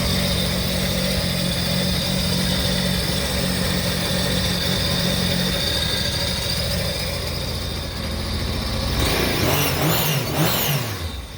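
Mini jet boat's engine running at a steady idle, then revved in about four quick blips near the end, the pitch rising and falling with each.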